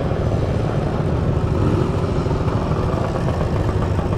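Motor scooter engines running with a steady low rumble.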